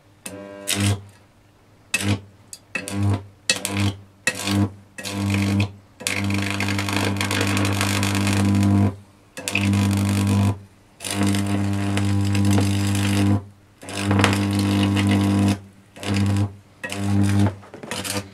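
A 240 V mains electric arc is struck again and again against a clothes iron, giving a loud buzzing mains hum with a crackling hiss. It comes in short bursts at first and near the end, and in runs of two to three seconds in the middle, with brief breaks between.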